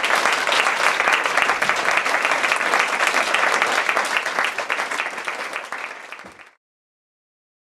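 Audience applauding, the clapping fading away and cutting to silence about six and a half seconds in.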